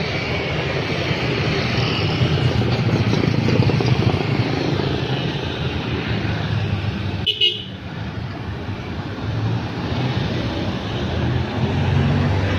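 Passing road traffic: motorcycles and cars going by with engine and tyre noise that swells and fades. There is a short horn toot about seven seconds in.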